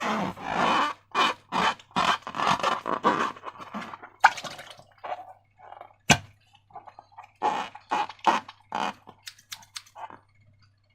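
Slime being squished and worked by hand: irregular wet, sticky squelches, thick for the first few seconds and then more spread out, with one sharp click about six seconds in.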